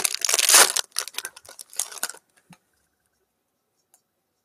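Rustling and crinkling of trading-card packaging being handled and opened, stopping about two seconds in.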